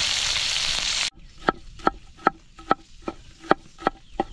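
Food sizzling in a pan, cut off suddenly about a second in, then a hen clucking steadily, short clucks about two or three a second.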